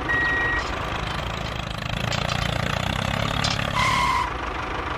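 Tractor engine running steadily, with the last of a reversing beep at the start and a short beep about four seconds in.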